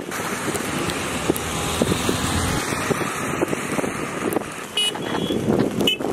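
Road traffic on a snow-covered highway: vehicle engines running and tyres on snow, with a brief high squeak about five seconds in.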